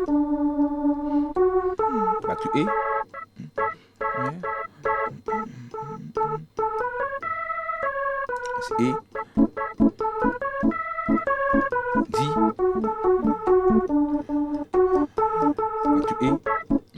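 Keyboard set to an organ sound, playing reggae rhythm chords in short, choppy stabs that repeat quickly, with a few longer held chords between them.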